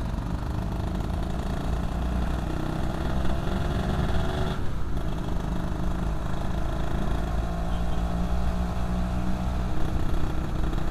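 Yamaha F1ZR 110cc two-stroke motorcycle engine running while being ridden, its pitch slowly climbing, dipping briefly just under five seconds in, then climbing again.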